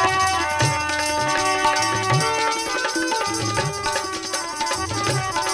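Instrumental passage of a Rajasthani devotional chirja: a melody of held notes over tabla-style hand-drum strokes, with no singing.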